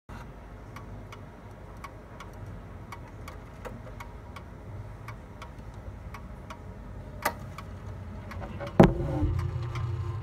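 Vintage ODO chiming clock's movement ticking steadily, a little under two ticks a second. Near the end there is a heavier clunk followed by a low ringing.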